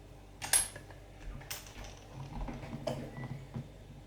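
Metal disc lock knocking and rattling as it is handled and tried onto a stand-in brake disc: a sharp knock about half a second in, then several lighter clicks and clacks.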